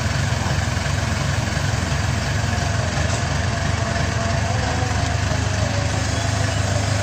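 Backhoe loader's diesel engine idling steadily with an even low rumble.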